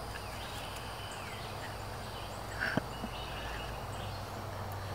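Quiet outdoor background with a bird calling faintly in short gliding chirps, and one soft click a little past halfway as cord is worked around wooden poles.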